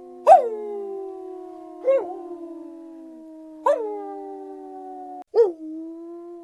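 Several canines howling together in overlapping, long held notes at different pitches. New howls come in four times, each starting high and quickly dropping to a steady pitch.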